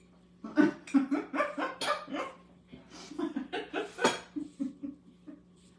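A woman laughing in a long run of short, breathy bursts, several a second, with one sharper outburst about four seconds in.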